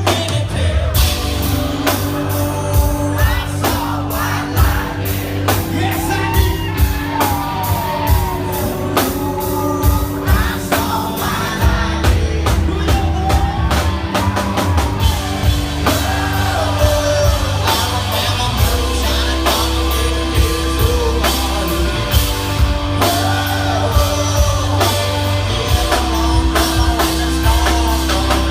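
Country-rock band playing live: drums, bass and electric guitars with singing, loud throughout.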